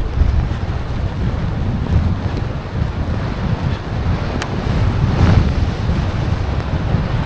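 Wind buffeting the microphone of a skier's POV camera while skiing, a loud gusting rumble with a brief click about four seconds in.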